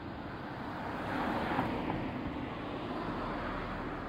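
City traffic noise: a vehicle passing, its sound swelling to a peak about a second and a half in and then slowly fading.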